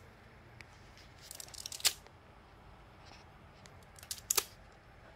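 Clear plastic film wrapped around a rolled sticker sheet crackling as hands handle and pick at it: two short clusters of sharp clicks and crinkles, about a second in and again about four seconds in.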